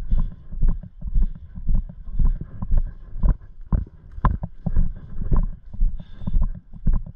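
Footsteps of the camera wearer walking at a steady pace, about two heavy thumps a second, with gear clicking and rattling on each step.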